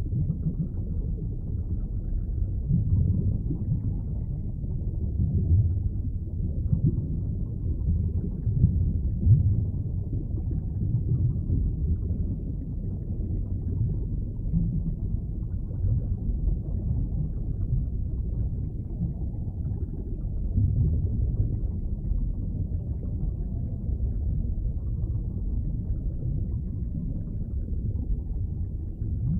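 Underwater ambience: a steady, muffled low rumble of water with small swells in loudness and nothing high-pitched.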